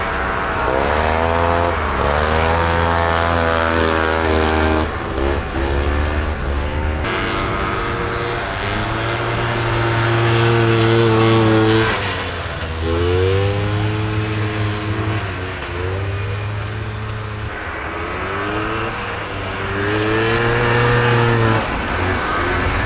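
Vintage racing snowmobiles' two-stroke engines revving, their pitch climbing and dropping again and again as the sleds accelerate and back off around the course. The loudest stretch is a steady high run about halfway through as one sled passes close.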